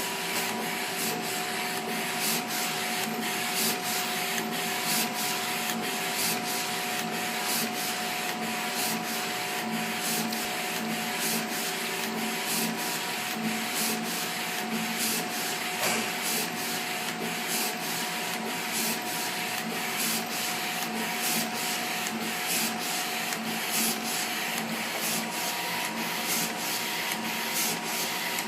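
A3 UV flatbed printer running a print job: a steady mechanical whir with a constant hum and evenly repeating clicks.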